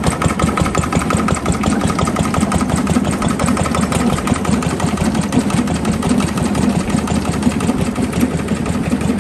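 An old stationary engine running steadily, with a rapid, even beat.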